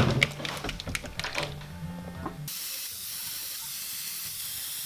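Airbrush spraying paint onto a wooden lure: a steady hiss of air and paint that starts about two and a half seconds in, after a few light handling clicks.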